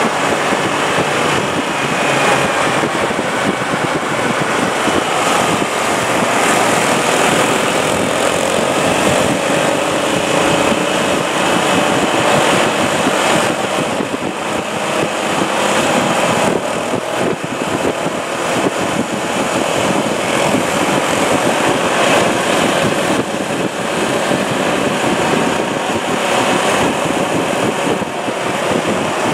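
Motorcycle engines running at riding speed, their pitch drifting up and down as the bikes speed up and slow.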